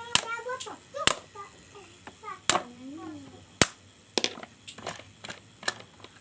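Irregular sharp clicks and knocks of tools and hard plastic and metal parts being handled while a blender is taken apart, about ten taps.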